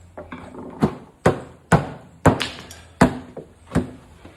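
A hammer striking the wooden head of a bourbon barrel, about seven sharp knocks at uneven intervals of about half a second, tapping the new head down into its groove.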